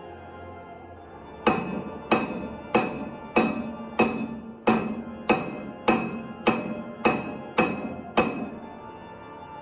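Blacksmith's hammer striking steel on an anvil: twelve ringing blows at a steady pace of a bit under two a second, starting about a second and a half in, over background music.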